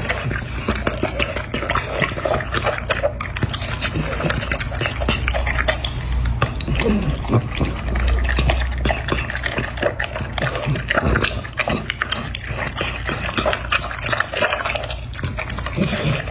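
A bulldog-type dog eating a wet mix of chopped meat and cabbage from a bowl: fast, dense wet chewing and smacking with no pause, over a low steady hum.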